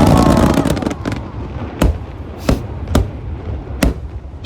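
Aerial fireworks going off. A dense crackling burst fills the first second, then four sharp single bangs follow, spaced half a second to a second apart.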